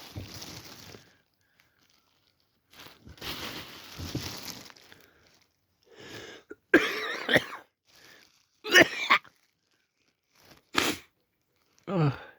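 A man with a head cold coughing: after two quieter hissing stretches, four or five harsh, chesty coughs come from about six seconds in, the loudest around seven and nine seconds.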